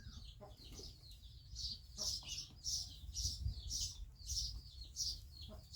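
Birds chirping in the background, a steady series of short high calls about one every half second, over a faint low rumble.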